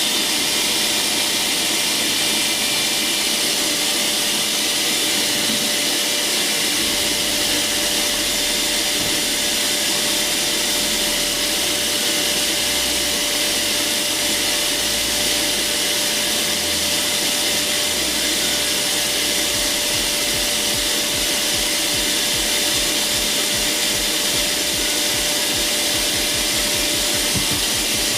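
Prestige mixer grinder's carbon-brush motor running steadily at speed without load, a steady whine over a loud hissing rush. Run empty like this it keeps going fine; the fault only shows under load.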